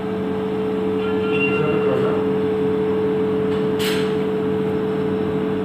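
Steady low machine hum holding two even low tones, with a brief hiss about four seconds in.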